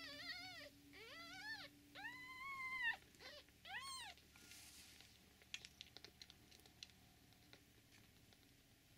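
Newborn kittens mewing while jostling at the nipples: about five short, wavering, high-pitched calls in the first four seconds, the longest close to a second. After that come faint scattered clicks, typical of kittens suckling.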